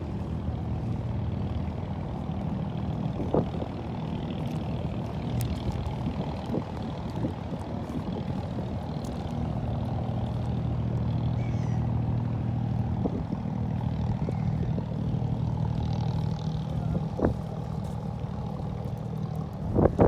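Abra water taxi's inboard diesel engine running steadily underway, a low drone heard from on board that grows slightly louder about halfway through, with a few light knocks.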